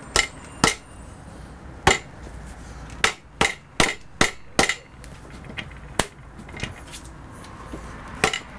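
Open palm smacking the aluminium lower unit of a Yamaha 90 hp two-stroke outboard, a series of sharp slaps with a brief metallic ring, a quick run of about six near the middle. The blows knock the unbolted gearcase loose from the midsection.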